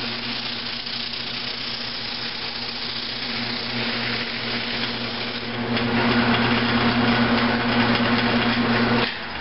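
Wood lathe running with a steady motor hum while sandpaper is pressed against the spinning cedar workpiece, giving a rough hiss. The sanding gets louder about six seconds in and drops away abruptly near the end.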